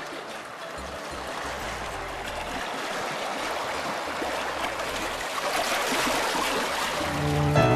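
Shallow sea water washing and sloshing over shoreline rocks, a steady splashing hiss that grows louder toward the end.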